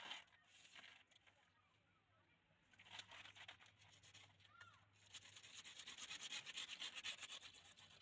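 A hand-held hacksaw blade sawing through a plastic water pipe in quick back-and-forth strokes, starting about three seconds in and strongest over the last three seconds.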